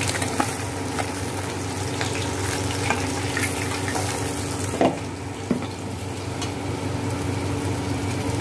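Hot mustard oil sizzling in a nonstick wok as fried fish are lifted out with a spatula, with scattered clicks of the spatula against the pan. A louder knock comes about five seconds in, and the sizzling thins out after it.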